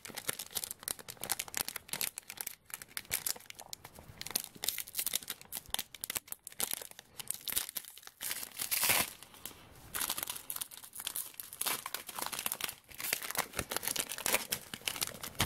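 A trading-card pack's wrapper being crinkled and torn open by hand, with irregular rustling and crackling and a louder burst about nine seconds in.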